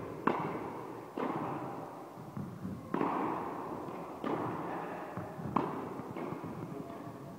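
Tennis ball struck by rackets and bouncing on the court in a rally: sharp pops about a second or so apart, five strong ones, each echoing in the large indoor hall.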